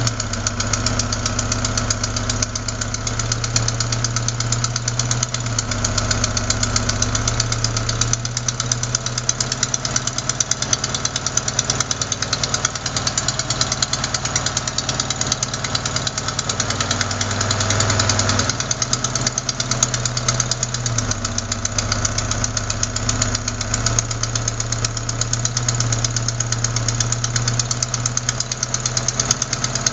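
Opel Ascona engine idling with a fast, even ticking knock. The knock is the sign of an exhaust manifold gasket leaking at the fourth cylinder, not of worn lifters or rockers.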